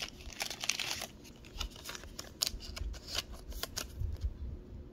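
Pokémon trading cards being handled, an irregular run of quick clicks and short slides as the cards are flicked through and moved about.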